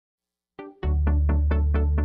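Background music: a piano instrumental that starts about half a second in, with chords struck evenly about four times a second over a steady low bass.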